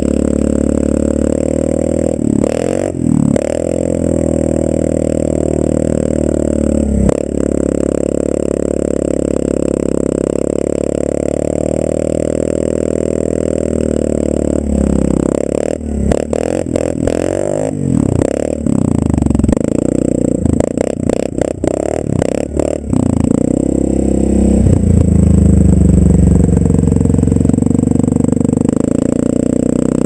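Yamaha Grizzly 550 ATV's single-cylinder engine running steadily, then revving up and down several times in the second half as it spins on snow. Guitar music plays underneath.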